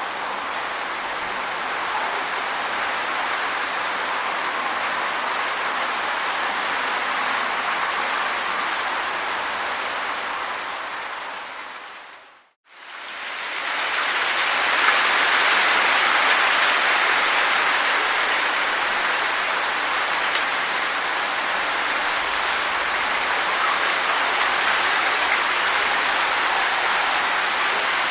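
Wind rustling tree leaves, a steady dense rustle. About twelve seconds in it fades out to silence, then fades back in fuller and louder.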